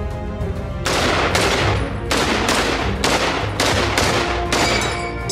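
M1 Garand .30-06 semi-automatic rifle fired in rapid semi-auto, a string of about seven shots roughly two a second, starting about a second in. Background music plays underneath.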